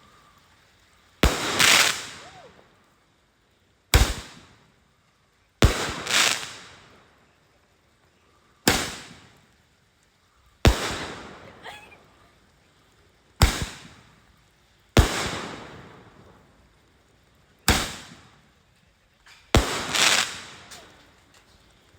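Large 2-inch Roman candle firing shot after shot, about a dozen sharp bangs at uneven gaps of one to three seconds, each trailing off in a fading hiss.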